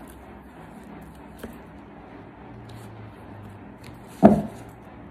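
Tarot cards being handled and shuffled, with a few faint card ticks and one sharp knock about four seconds in.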